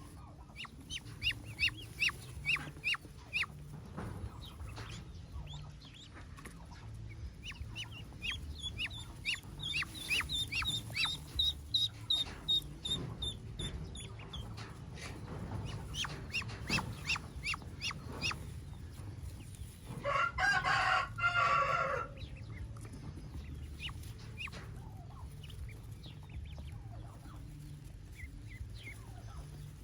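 Newly hatched ducklings peeping, many short high calls in quick runs, over a low steady rumble. About twenty seconds in, a louder, fuller call lasts about two seconds.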